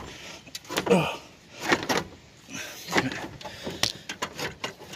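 Irregular knocks and clunks of parts and tools being handled in a car's engine bay, with a couple of short vocal sounds.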